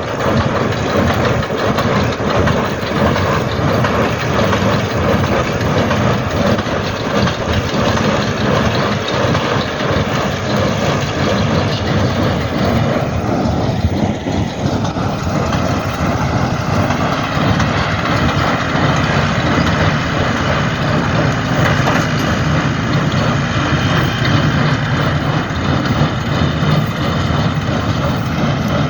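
Tractor-driven Shaktiman square baler running steadily while making bales, its engine and baler machinery giving a continuous loud mechanical noise.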